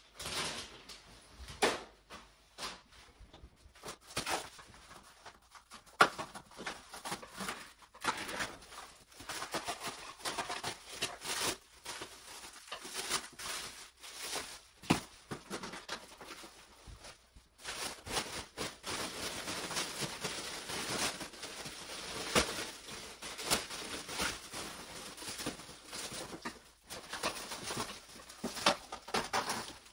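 Rustling and crinkling of silvery plastic wrapping being handled and pulled off a large packaged table, with scattered sharp crackles and knocks. The crinkling thickens into a steadier stretch in the second half.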